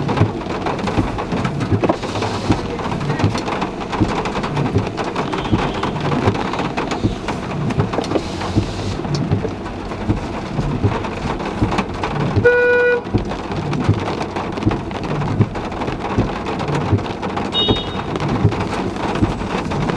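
Heavy rain falling steadily on a car. About twelve and a half seconds in, a car horn honks once briefly.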